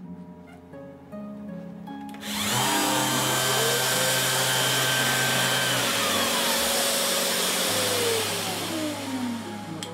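Festool orbital sander switched on about two seconds in: its pitch rises as it spins up, then it runs with a loud, steady whirring rush. Near the end it is switched off and its pitch falls as it winds down.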